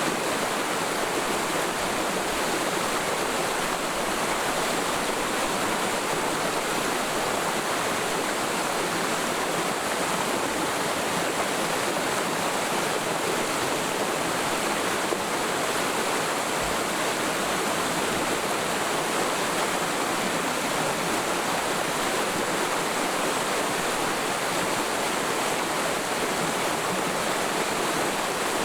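Mountain stream in a forest valley flowing steadily over rocks: an even, unbroken rushing of water.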